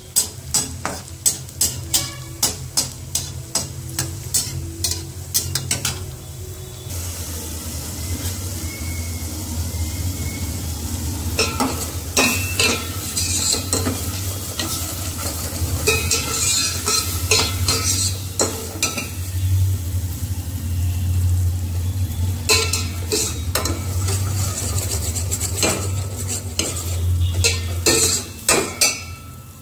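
A slotted metal spatula scrapes and taps in an aluminium kadai of frying cashews, about two strokes a second for the first six seconds. Then a steel spoon stirs and scrapes irregularly around a steel pot, with a steady low hum and a faint sizzle underneath.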